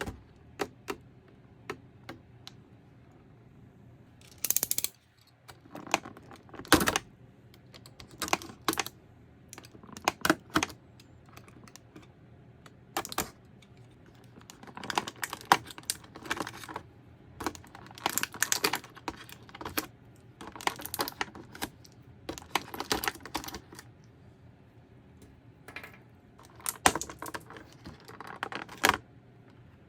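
Irregular clicks, taps and short crinkling rustles of action-figure packaging being handled and opened: plastic tray and cardboard box.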